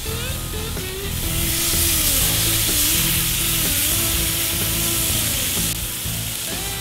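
Bacon-wrapped steaks sizzling as they are laid on the hot grate of a charcoal kettle grill; the hiss grows louder about a second in and eases off near the end.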